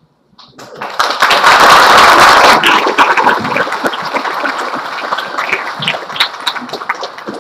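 Audience applauding. The applause breaks out about half a second in, is loudest over the next two seconds, then slowly dies down.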